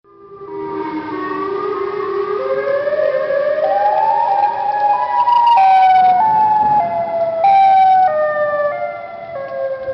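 Tornado warning siren winding up from silence. Its pitch climbs over the first five seconds, then holds high as a wail that wavers up and down in steps and slowly sinks.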